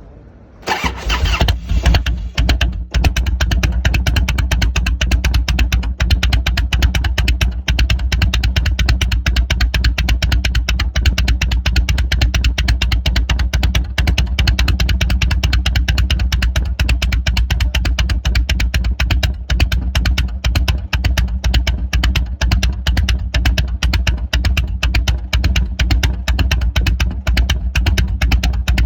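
1994 Harley-Davidson Dyna Wide Glide's 1340 cc Evolution V-twin started on the electric starter, catching about a second in, then idling with an uneven loping beat through its exhaust, the 'horse hooves' sound.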